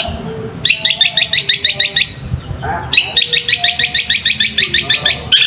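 Long-tailed shrike (cendet) giving rapid, harsh chattering calls, about nine sharp high notes a second, in two bursts of over a second each with a short gap, and a third starting near the end.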